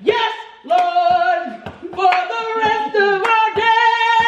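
A woman singing a gospel-style praise song into a handheld microphone, holding long notes and moving between pitches, with a few sharp hand claps.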